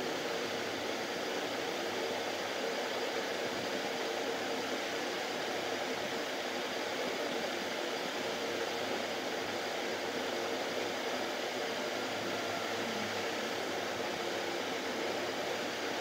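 Steady background hiss with a faint low hum, unchanging throughout.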